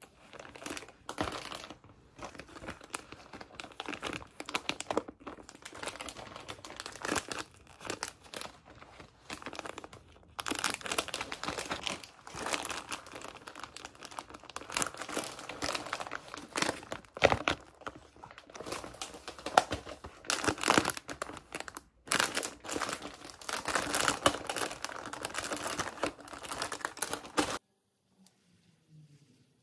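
Plastic snack packets crinkling and rustling as they are handled, in irregular bursts; the sound cuts off abruptly near the end.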